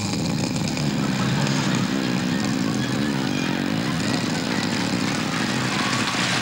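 A man imitating a snore into a handheld microphone: one long, rattling inhaled snore that never lets out, the kind of snorer who only breathes in.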